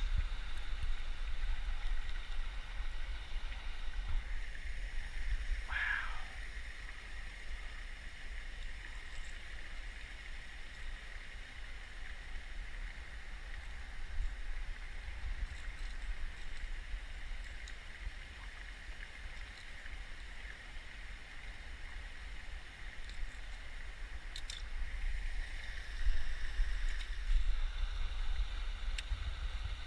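Steady low outdoor rumble and hiss on the microphone, a little louder near the end, with one brief squeak about six seconds in.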